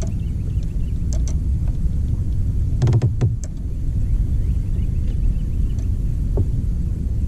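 Steady low rumble of a fishing kayak under way on open water, with a cluster of sharp knocks and a heavier thump from gear on the kayak about three seconds in and a couple of lighter clicks about a second in. Faint bird chirps sound behind it.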